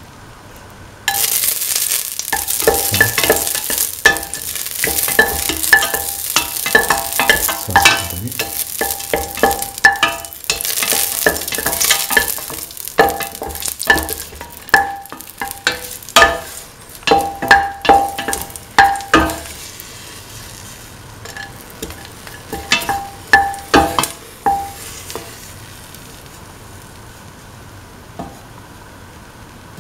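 Broken cardamom pods sizzling as they fry in hot ghee in a stainless steel pan. A spatula stirs them, scraping and clinking against the metal pan. The sizzle starts suddenly about a second in and dies down about two-thirds of the way through, with a few more scrapes after it.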